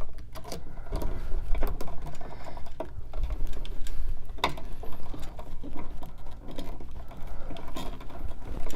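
Hands working stiff copper electrical wires in a wall box, making irregular clicks, taps and scraping while a switch's neutral lead is joined to the box's neutral wires.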